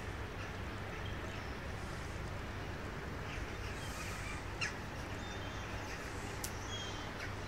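Seagulls calling a few times in short cries over a steady low hum and wash of background noise.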